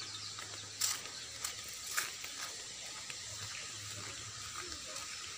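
Outdoor field ambience: a steady low hiss with a few soft knocks from footsteps along a dirt path, and faint bird chirps.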